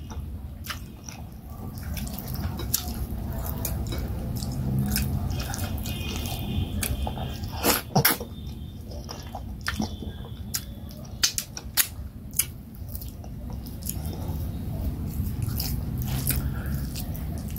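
Close-up chewing and wet mouth sounds of someone eating soft fufu and leafy vegetable soup by hand. Sharp lip smacks and finger-sucking clicks are scattered throughout, loudest around eight seconds in and again around twelve.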